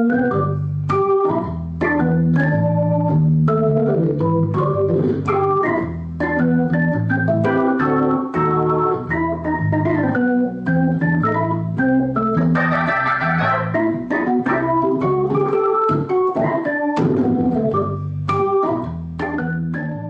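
Instrumental organ-like keyboard music: sustained low chords changing every second or so under a busy melody of short notes.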